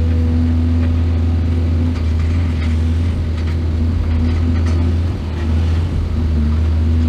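Excavator's heavy diesel engine running steadily, a constant low drone that dips briefly about five seconds in, with faint scattered knocks.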